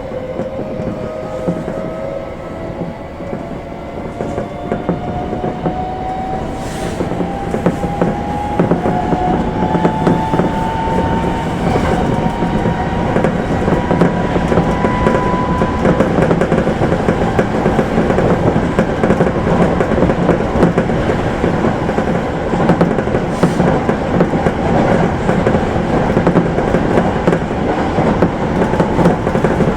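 Electric commuter train accelerating, heard from inside the front car: its motor whine rises steadily in pitch over the first half, then the train runs on with wheels clicking over the rails, growing louder.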